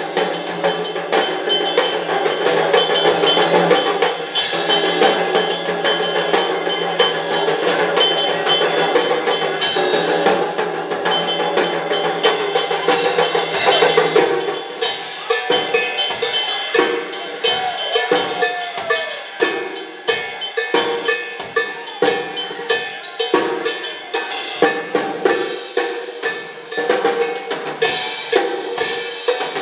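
Rock drum kit played live in a drum solo: dense, rapid playing for the first half, then separate hard strokes with short gaps between them from about halfway on.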